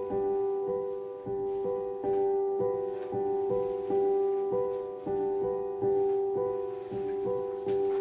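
Soft instrumental background music: a gentle piano figure of repeated notes, about two a second, each note ringing and fading.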